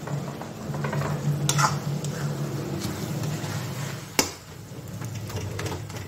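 Elephant apple pieces in sugar syrup bubbling and sizzling in a black kadai while a steel spoon stirs them, scraping through the mix with sharp clinks of the spoon on the pan about one and a half and four seconds in.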